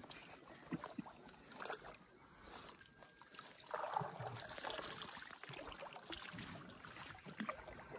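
Faint splashing and lapping of water around a small boat, with scattered light knocks. The sloshing grows louder about four seconds in.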